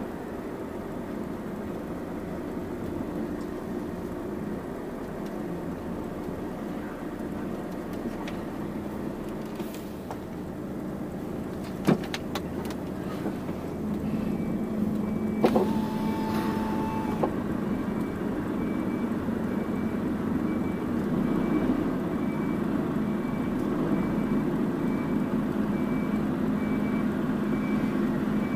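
Volvo FH12 500 truck's straight-six diesel engine running steadily, growing a little louder about halfway through. There are two sharp clicks, a steady beep lasting about two seconds, and then a faint high beep that repeats evenly to the end.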